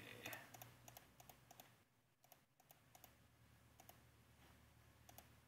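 Faint clicking of a computer mouse, many clicks and often in quick pairs like double-clicks, over a low steady hum.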